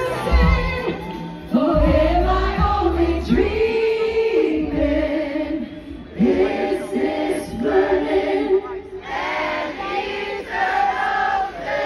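Live pop ballad heard from the audience through a concert PA: women singing into microphones over backing music. The bass is heavy at first and drops away about five seconds in, leaving mostly the voices.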